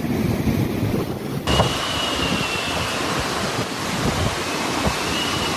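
Cyclone wind blowing hard on the microphone over surging surf, a steady loud rush of noise. About a second and a half in it turns into a brighter, fuller hiss with a faint high whistle running through it.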